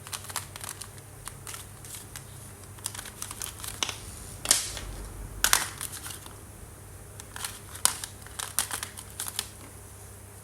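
Drawing and colouring tools working on paper: scattered light clicks and taps, with two short scratchy strokes near the middle, the loudest sounds.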